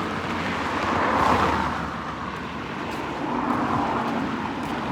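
Road traffic: vehicles passing on a busy road, a steady tyre and engine hiss that swells about a second in and again near the end.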